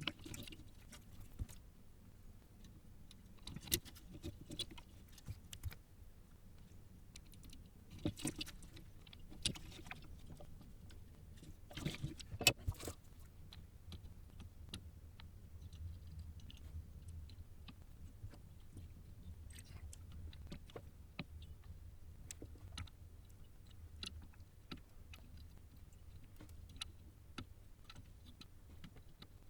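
Scattered small clicks and taps of resistors being handled, fitted into a circuit board and soldered, with a brief flurry of sharper clicks about twelve seconds in, over a low steady hum.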